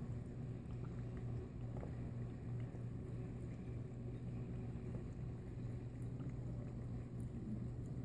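Aquarium filter running: a steady low hum, with water from its outflow spout pouring and splashing into the tank.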